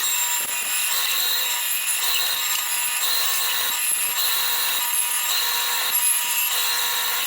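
Butcher's band saw running steadily through bone-in dry-aged sirloin, cutting it into porterhouse and T-bone steaks: a constant hissing rasp with a steady high whine.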